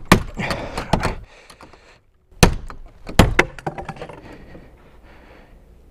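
Claw hammer striking a padlock and its hasp on a wooden shed door: a run of sharp blows, then a second run, until the lock is broken off.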